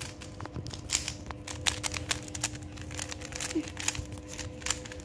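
Rubik's cube layers being turned by hand, a rapid irregular run of small plastic clicks and clacks.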